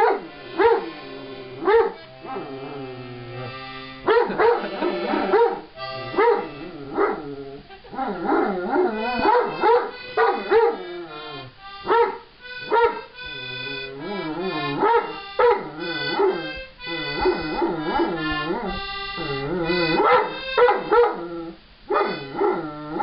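Giant schnauzer barking again and again over the held notes of a musical instrument being played; the dog is objecting to the playing.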